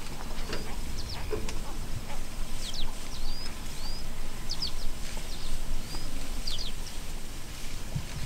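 Birds chirping: short high calls, some sweeping quickly downward and some rising then levelling off, scattered throughout, over a steady low rumbling background.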